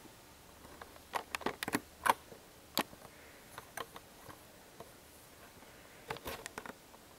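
Handling noise of a camera mount being swivelled and adjusted close to the microphone: irregular clicks and knocks, a cluster of them about a second in, a single sharper knock near three seconds, and another cluster after six seconds.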